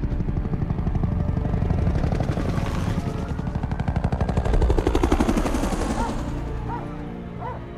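UH-1 Huey helicopter flying close past, its rotor blades chopping rapidly; the chop builds, peaks about five seconds in with a drop in pitch as it passes, then fades away.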